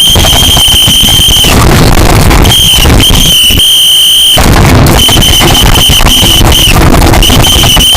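A piercing, steady high-pitched whistle-like tone sounds in irregular stretches of a fraction of a second to nearly two seconds, cutting out and returning several times. Under it runs harsh, heavily distorted crackling noise.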